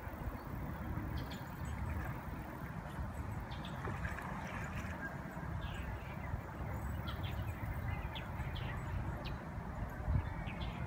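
Outdoor river ambience: a steady low rumble with scattered short bird chirps.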